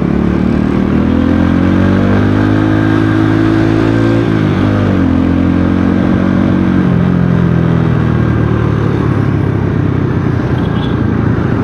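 Rusi Korak 110 motorcycle engine heard from the bike itself while riding, its note rising for the first few seconds, dipping briefly about halfway through, then easing off about seven seconds in. Steady road and wind noise runs underneath.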